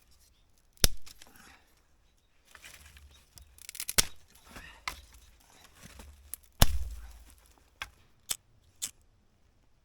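Dry sticks being snapped by hand for kindling: a few sharp cracks, the loudest about two-thirds of the way through, with crackling and rustling of twigs between them and three lighter snaps near the end.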